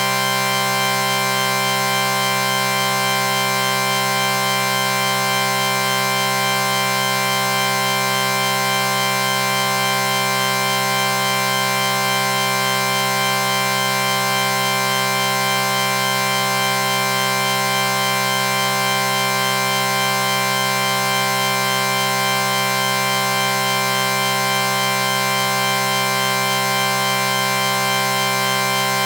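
A sustained electronic chord: many steady tones held together without change, like a drone.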